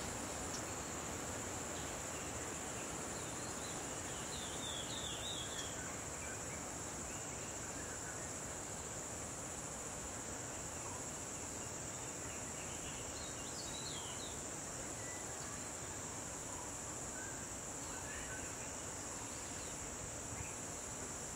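Steady, high-pitched insect chorus over an even background hiss, with a few short bird chirps about five seconds in and again near the middle.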